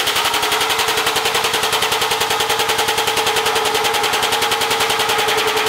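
RogueFab M601 tubing bender being powered through a bend in 1.5-inch steel tube: a machine running with a rapid, even chatter of about a dozen pulses a second over a steady hum.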